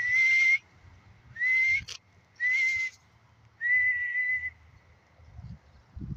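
A person whistling four notes at one steady pitch to call a pet seagull, each note rising slightly at its start and the last one the longest.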